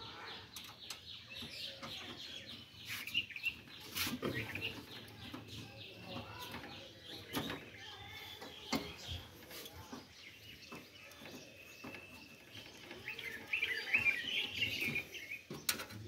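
Birds chirping and calling, with a quick run of high chirps early on and a busier burst of calls near the end, over scattered sharp clicks and knocks of a screwdriver and metal parts as a fan motor is fastened into an air-conditioner outdoor unit.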